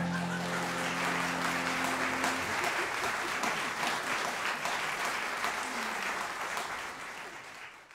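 Audience applauding after the end of the music; the closing chord of the music rings on under the applause for about two and a half seconds. The applause fades out near the end.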